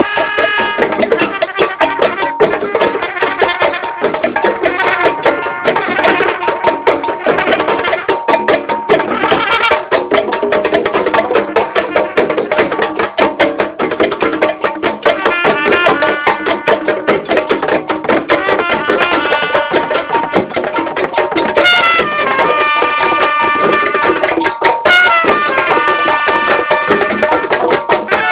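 Drum circle of congas and other hand drums playing a fast, dense rhythm, with sticks striking a drum as well. A held pitched sound, with some sliding notes, rides over the drumming in the second half.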